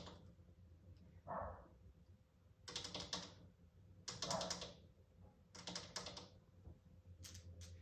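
A puppy's claws clicking and scrabbling on a hard plastic climbing board, in about four short runs of rapid clicks.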